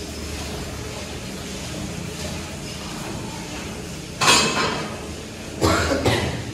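Sharp metallic clanks: one about four seconds in and two close together near the end, over a steady low hum.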